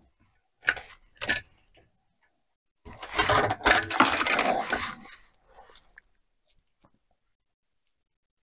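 Chainsaw chain being lifted off its guide bar by hand: a couple of sharp clicks, then a dense metallic rattle and jangle of the chain links for about two seconds.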